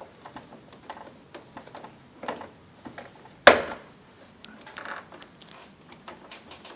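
Scattered light clicks and taps of hand work on an air conditioner indoor unit's wiring, with one sharp, louder click about three and a half seconds in.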